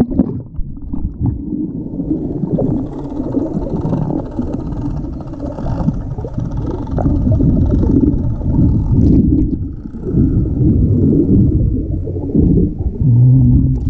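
Muffled underwater rumble and sloshing of water stirred by a swimmer, heard through an action camera's microphone held under the surface of a swimming pool. It opens with the splash of the camera plunging in, and near the end a short low steady hum sounds through the water.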